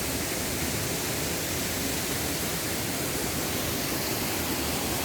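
Steady rush of water from a small waterfall on a mountain stream.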